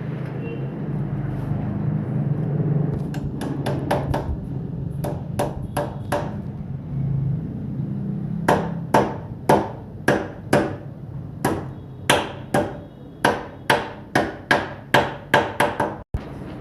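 Hammer blows on a motorcycle's steering-head cone set (steering bearing races): a few quick runs of sharp strikes, then a steady string of blows about two a second from a third of the way in to near the end.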